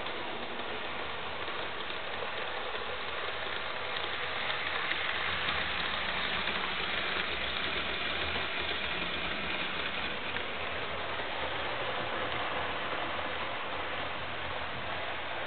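HO scale model diesel locomotive and freight train running on track, its motor and gears whirring and its wheels clattering on the rails. It grows louder as the train passes close by, loudest in the middle.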